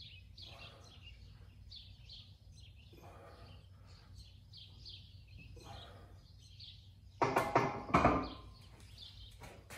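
Birds chirping over and over in the background, then two loud metallic clanks about seven and eight seconds in from the plate-loaded camber bar being set down in the bench's uprights.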